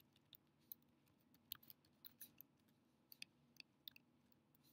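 Faint, irregular keystrokes on a computer keyboard: a dozen or so scattered clicks.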